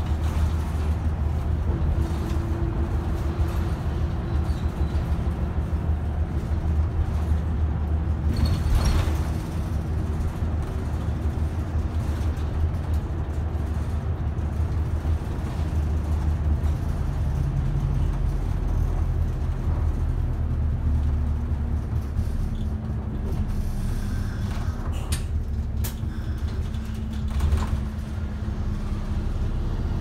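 City bus's diesel engine running as the bus drives along, heard from inside the cabin near the front; the engine note shifts a little partway through. A brief noise about nine seconds in, and a few clicks and rattles near the end.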